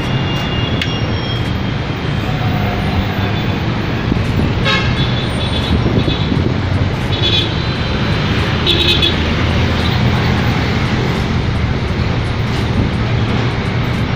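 Steady road traffic noise, with a few short high-pitched sounds about halfway through.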